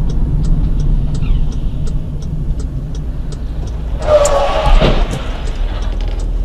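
Car driving, its engine and road noise a steady low drone, with faint even ticking at about three a second. About four seconds in, a louder noisy burst with a brief held tone and a sharp knock rises over it.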